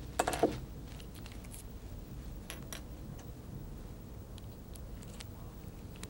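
Faint scattered clicks of small metal dental instruments being handled, over a low steady hum, with one short pitched sound just after the start.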